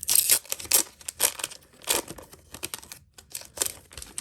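Foil Pokémon booster pack wrapper crinkling and tearing as it is opened, in irregular rustling bursts.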